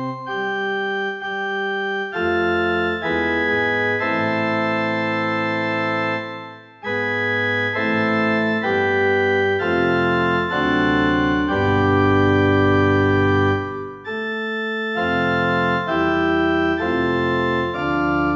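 Casio CDP-S360 digital piano playing its 'PipeOrg2' pipe organ preset, seemingly the first organ preset with a 16-foot stop added for deeper bass. Held chords over a moving left-hand bass line, with two short breaks between phrases.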